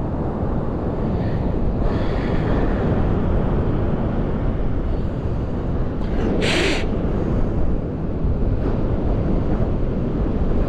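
Wind buffeting the microphone: a steady low rumble, with a brief hiss about six and a half seconds in.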